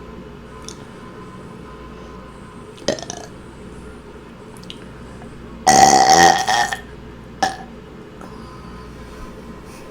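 A woman burping on command: one loud, pitched burp lasting about a second, about six seconds in. Two brief sharper sounds come a few seconds before it and shortly after.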